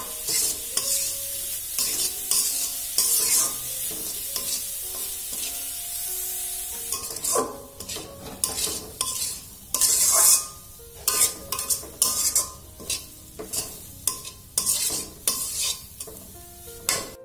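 Metal spatula scraping and stirring grated carrots around a metal karahi while they sizzle in melted butter, the moisture in the carrots cooking off. The strokes come steadily, growing more distinct, about one or two a second, in the second half.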